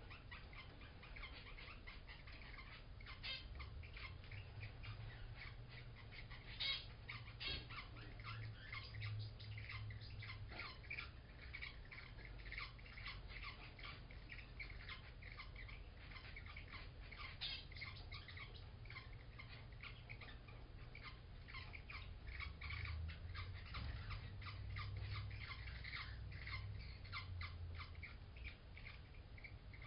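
Parrotlets squeaking rapidly and continuously while mating, a creaky noise like a squeaky bed or shopping cart. A few louder beeping calls from zebra finches stand out over it, with a low hum underneath.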